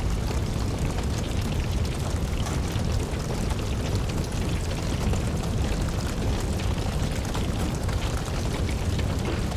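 Wood fire crackling in a fireplace, many small irregular pops over a steady low rumble, with an even hiss of rain underneath.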